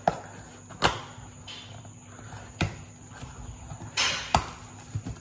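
Cardboard parcel box being opened by hand: a few sharp knocks and snaps as the box and its flaps are handled, with a short tearing sound about four seconds in.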